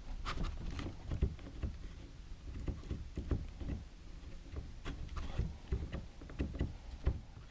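Scattered small clicks and knocks with rubbing, from hands working a part of a Franchi Affinity 3 shotgun loose.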